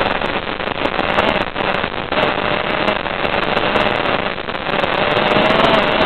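FPV quadcopter in flight: a faint, wavering motor whine from its motors and propellers under loud rushing, crackly wind noise.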